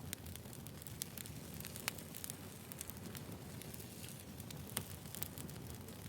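Campfire crackling steadily over a low rumble, with frequent sharp pops; the loudest come about two seconds in and near five seconds.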